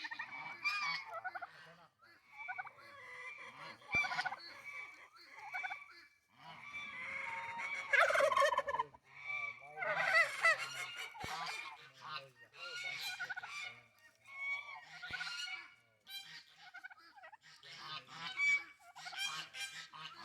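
A flock of farm poultry calling, many overlapping calls throughout and loudest in a burst about halfway through.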